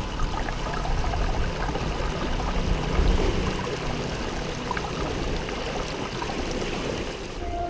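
Small sea waves washing over a fine-pebble beach: a steady rush of water with faint scattered clicks of pebbles.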